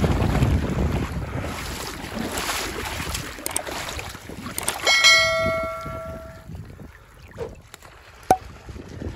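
Wind buffeting the microphone with handling rustle, fading over the first few seconds. About five seconds in come a couple of clicks and a ringing bell chime that dies away over a second or so: the sound effect of a subscribe-button animation.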